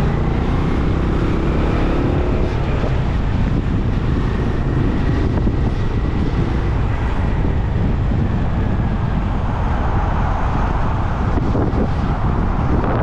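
Benelli Imperial 400's single-cylinder engine running steadily as the motorcycle rides along, with wind rushing over the microphone, stronger in the second half.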